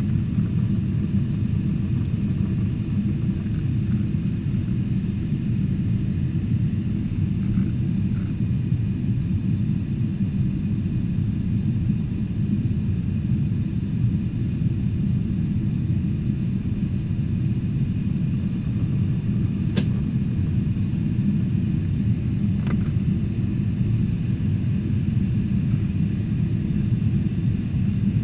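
Steady low drone of a Boeing 747-400 in flight, heard inside the passenger cabin: engine and airflow noise at an even level. Two faint clicks come about twenty and twenty-three seconds in.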